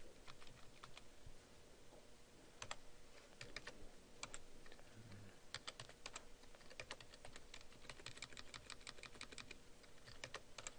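Faint clicking of computer keyboard keys being typed, coming in irregular runs of keystrokes that are densest in the second half.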